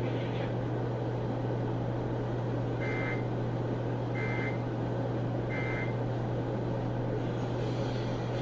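Three short bursts of EAS/SAME digital data tones, each about a third of a second and about a second and a half apart, over the steady hum and static of a weather-radio receiver. Bursts this short are typical of the 'NNNN' end-of-message code that closes an alert.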